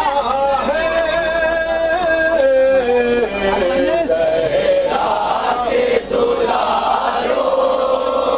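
A man chanting a mourning lament in long held notes that step down in pitch, with a crowd of men's voices joining in about five seconds in.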